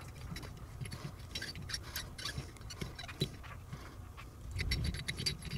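Faint small metallic clicks and ticks with light handling noise as a Helicoil thread insert is wound by hand into a tapped hole in an axle bearing hub with its insertion tool.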